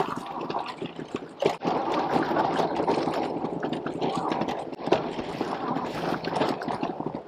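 HAOQI Cheetah full-suspension e-bike riding over a dirt trail: fat knobby tyres rolling over rough ground in a continuous rough noise, with frequent small clicks and knocks from the bike over the bumps.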